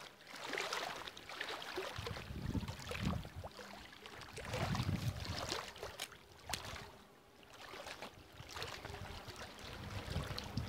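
Small lake waves lapping and splashing against a concrete wall and stone embankment in uneven surges, with wind buffeting the microphone in low gusts.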